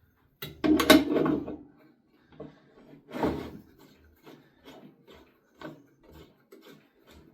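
Clunks and scraping from the angle-grinder chop-saw rig being handled and adjusted: a loud clatter about half a second in, another about three seconds in, then a run of lighter knocks.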